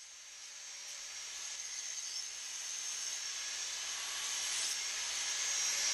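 High-speed handheld rotary tool running with a steady high whine and hiss as it sands paint off an engraved aluminium badge, growing gradually louder.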